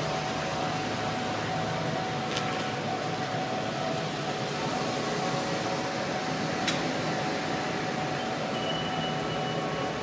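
Japanese railway level-crossing alarm ringing steadily over a constant rushing noise, with two brief sharp clicks about two and a half and seven seconds in.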